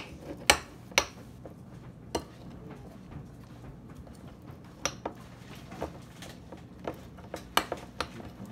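A utensil clinking and knocking against a bowl as slime is stirred: irregular sharp clicks, a few louder ones near the start and near the end, over a faint steady hum.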